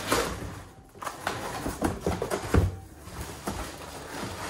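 Cardboard shipping box being opened by hand: flaps and packaging rustling and scraping, with a few light knocks.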